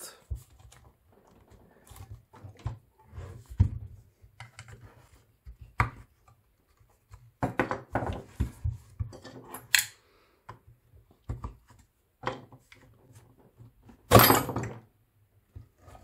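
A screwdriver prying and scraping at the hard plastic housing of a CCS charging connector, with scattered clicks and knocks. About fourteen seconds in comes a louder clatter as the front housing comes apart.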